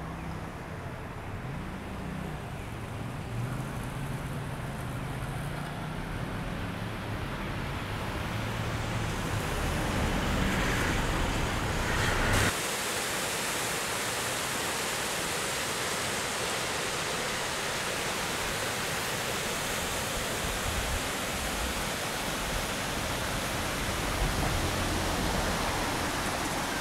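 A low rumble that slowly grows louder, then an abrupt cut about halfway through to the steady rush of a rocky stream spilling over small waterfalls.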